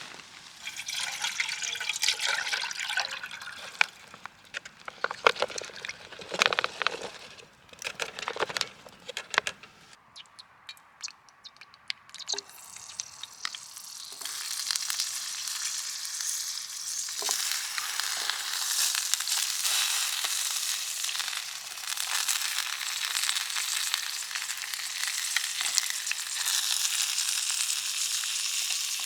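Food frying in a pan, with a few irregular clatters and knocks first, then a steady sizzle that sets in about halfway through and holds.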